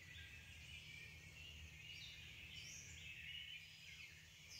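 Faint birdsong: several birds chirping and giving short whistles, over a steady low background hum.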